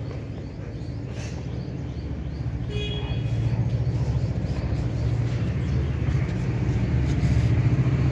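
Street traffic with a low engine rumble that grows louder, and a short vehicle horn toot about three seconds in.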